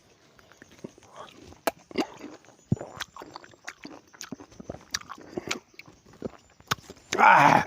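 Close-up eating sounds of someone biting and chewing nimbu (lime or lemon), with sharp wet mouth clicks and smacks scattered throughout. A short loud vocal sound comes from the eater just before the end.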